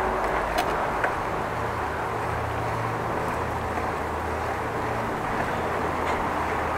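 Steady rushing noise of a bicycle riding along a path. A low hum comes in about a second and a half in, and there are a couple of faint clicks near the start.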